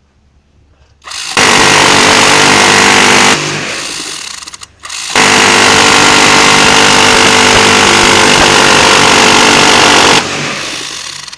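Gatling-type rotary machine gun firing two sustained bursts, about two seconds and then about five seconds long, each a continuous buzzing stream of shots at a very high rate that stops abruptly, with a fading tail after each.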